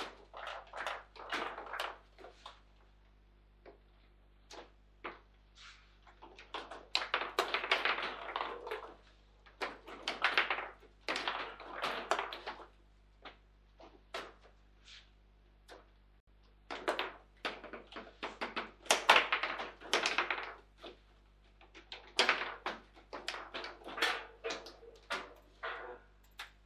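Table football (foosball) in play: the ball knocking off the plastic players and the table walls, and the rods clattering as they are slid and spun. It comes as irregular sharp knocks, with spells of rapid rattling.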